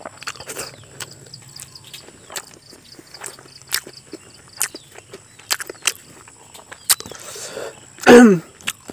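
Close eating sounds of a man eating rice with his fingers: scattered wet lip smacks and mouth clicks as he sucks rice grains off his fingers. About eight seconds in comes a short, loud vocal sound that falls in pitch.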